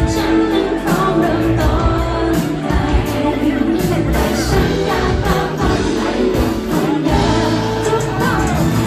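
Live performance of a Thai pop ballad: a woman singing with full band accompaniment, a steady beat and bass underneath.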